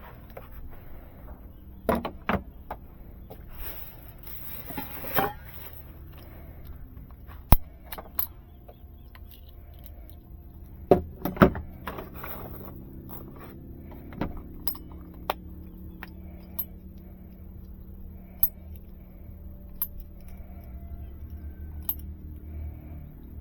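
E&C Glock 17 airsoft pistol: scattered sharp clicks and metallic clinks at irregular intervals, seconds apart. The loudest snaps come about seven and a half seconds in and twice around eleven seconds.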